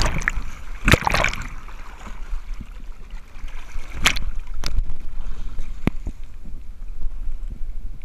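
Legs dragging and kicking through the sea surface, splashing water several times, loudest in the first second or so. Under the splashes runs a steady low rumble of wind on the microphone.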